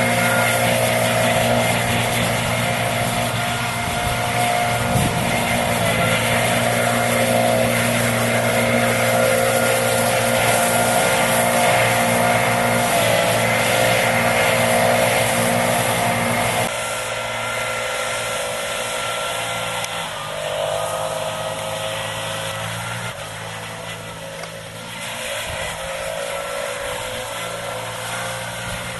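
Stihl BR 600 backpack blower engine running steadily, blowing cut hay across a steep meadow. A little past halfway it drops abruptly to a quieter, more distant level.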